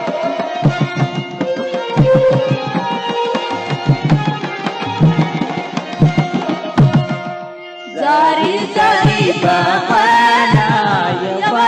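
Background music: an instrumental passage over a steady drum beat, dropping away briefly, then a voice starts singing about eight seconds in.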